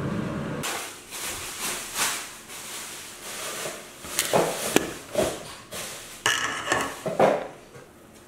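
Aluminium chiffon tube pan being lifted and handled, with several knocks and clatters and rubbing scrapes as a spatula loosens the cake from the pan's base.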